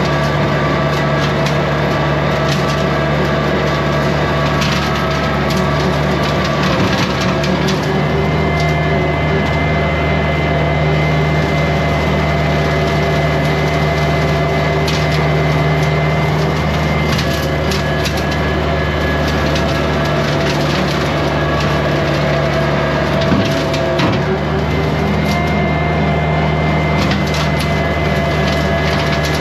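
Kubota compact tractor's diesel engine running steadily under load while its rotary brush cutter mows, with constant crackling and snapping of brush and sticks being chopped. A single sharper knock stands out about three-quarters of the way through.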